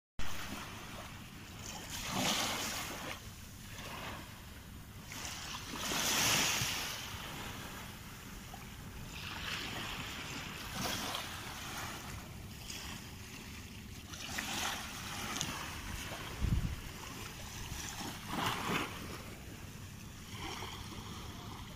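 Small, gentle waves washing onto a sandy beach, the surf swelling and easing every few seconds, with some wind on the microphone. A brief low thump about three-quarters of the way through.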